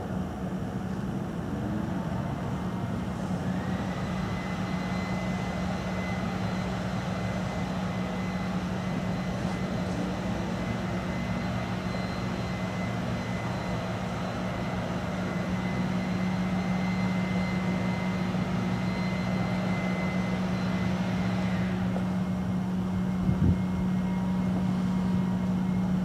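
Federal Signal 2001-DC electromechanical warning siren sounding during a test: a steady, unbroken tone with no rise and fall, slowly getting a little louder. A higher whine joins in a few seconds in and drops out near the end.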